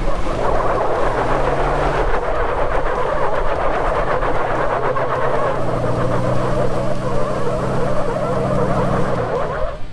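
Two off-road vehicles, a lifted Jeep Cherokee and the Corvair-bodied Morrvair, pulling against each other on a strap at full throttle: engines straining under load and tyres spinning on the asphalt. The engine note grows stronger about halfway through, and everything stops shortly before the end.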